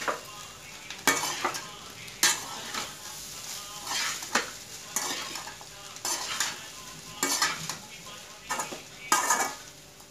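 Metal spatula scraping and tossing vegetable fried rice in a metal kadai, in uneven strokes about once a second, over a steady frying sizzle.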